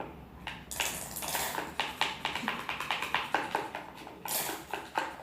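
Sticky, wet squelching and clicking, several times a second, as a glue-and-detergent slime mix is stirred and kneaded by hand. The mix is still not setting into slime.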